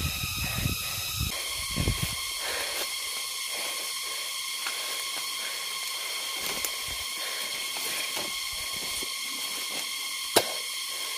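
Light rustling and occasional cracks of bamboo stems and dry leaves as a barefoot person climbs a bamboo clump, with one sharper crack about ten seconds in. A steady high whine of several tones runs underneath.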